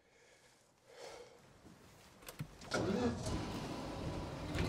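A van's engine starting: a couple of sharp clicks, then a little over halfway through the engine catches and runs loudly.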